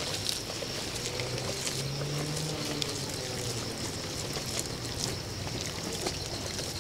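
A motorbike engine running steadily at low revs, a little stronger about two seconds in, with scattered light clicks.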